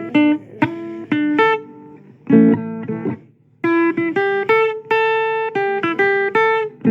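Guitar playing a blues fill between sung lines: a run of sharply plucked notes and short strums, with a brief pause a little past the middle.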